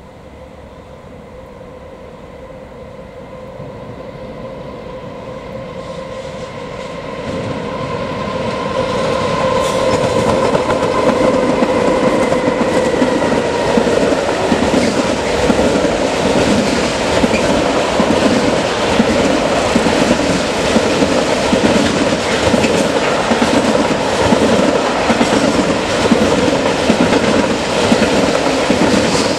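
Freight train hauled by two SNCF BB36000 electric locomotives approaching and passing close by. It grows louder over the first ten seconds or so with a steady tone, then the Modalohr wagons carrying lorry trailers and tank trailers clatter and rumble past over the rails.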